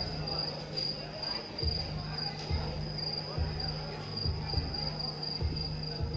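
Recorded mime soundtrack: a high, pulsing cricket-like chirping over low dull thuds about once a second.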